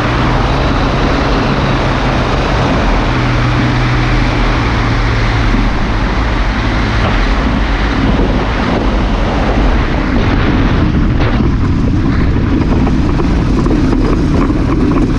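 Pegasus XL-SE microlight trike's engine and propeller running steadily under a heavy rush of airflow over the pod-mounted camera, as the trike comes in low and rolls out on grass. The engine note shifts about halfway through.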